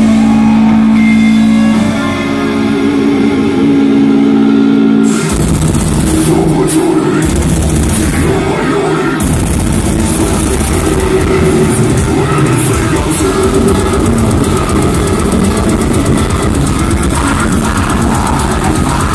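Technical death metal band playing live, recorded from the crowd. Held notes ring out for about five seconds, with one change of note about two seconds in, then the full band with drums comes in hard and keeps going.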